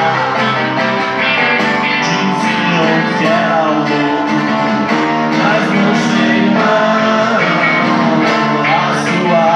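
Live rock band playing: strummed acoustic guitar, electric guitar and keyboard, with a man singing.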